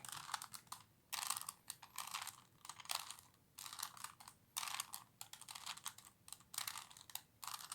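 A 3x3x3 Rubik's Cube being turned by hand through a solving algorithm. There are short bursts of plastic clicking as the layers rotate, a little more than one burst a second.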